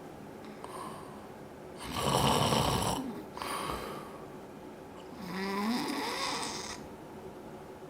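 Loud snoring in sleep. A harsh, rattling snore comes about two seconds in, and a second long snore comes about five seconds in, carrying a pitched tone that rises.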